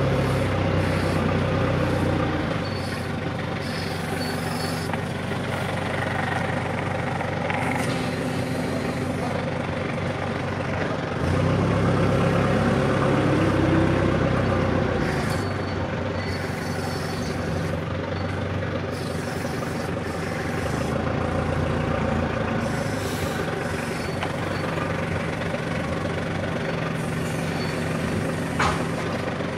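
Forklift engine running steadily, heard from the driver's seat. It revs up louder for a couple of seconds at the start and again for a few seconds in the middle, rising in pitch. There is one short sharp knock near the end.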